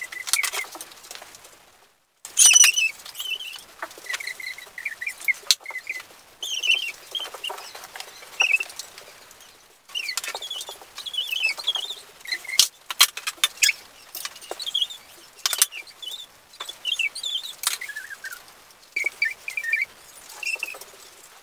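Sped-up audio of hobby-horse halters and lead ropes being handled: quick rustling and clicks with short, high chirp-like squeaks.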